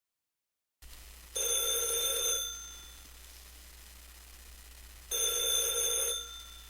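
Telephone ringing twice, each ring about a second long and the two some four seconds apart, over a faint hum and hiss on the line.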